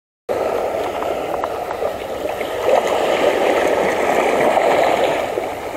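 Seawater washing and splashing over shoreline rocks: a steady, loud rush of water with small splashes in it, cutting in abruptly just after the start.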